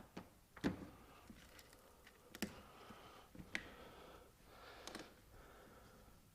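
A few faint, separate clicks and light knocks, about four in six seconds, from plastic engine-bay covers and clips being handled and unclipped.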